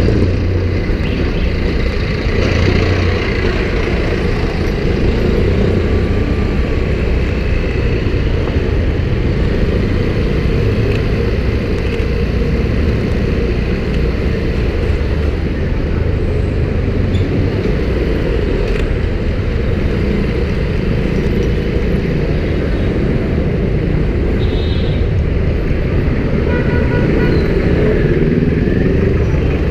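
Steady city street traffic: cars and motorcycles running close by, over a dense low rumble heard from a moving scooter. A short run of quick high beeps sounds a little before the end.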